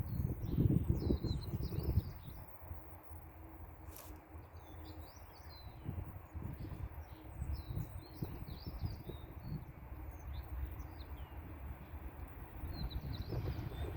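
Small birds chirping and twittering in repeated short phrases, over a gusty low rumble of wind on the microphone that is strongest in the first couple of seconds.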